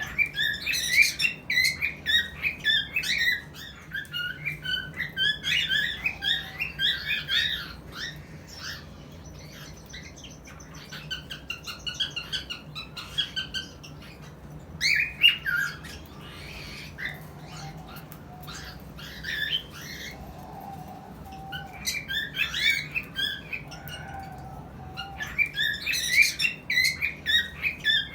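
Cockatiel chirping and squawking in rapid runs of short, high calls, loudest in several bursts separated by quieter stretches.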